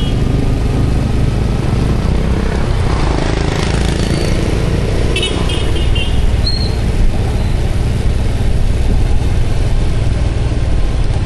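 Motorbike engine running steadily at riding speed, with other motorbikes in the traffic around it. A few short high beeps come about five seconds in.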